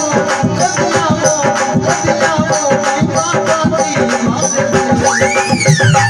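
Instrumental interlude of a Rajasthani folk devotional song: a quick, even hand-drum and rattle rhythm under a held melodic instrument line. About five seconds in, one note glides up and then falls back down.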